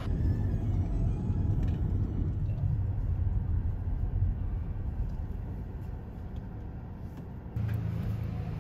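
Steady low rumble of a car on the move, with the sound changing abruptly near the end.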